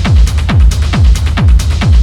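Techno played in a DJ mix: a steady four-on-the-floor kick drum at about two beats a second, each kick a short falling thump, with hi-hats between the kicks.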